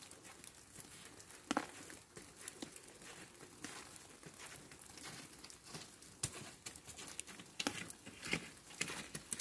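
Falling snow pattering, with many light, irregular ticks and one sharper tick about a second and a half in.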